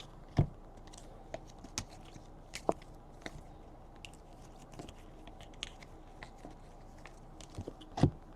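Trading cards being handled and flipped through by hand: irregular soft clicks and snaps of card stock, with a louder snap about half a second in and another near the end.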